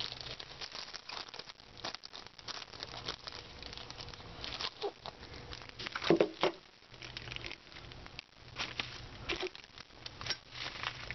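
Plastic packaging crinkling and rustling as it is handled and unwrapped, a run of irregular crackles with a louder handling noise about six seconds in.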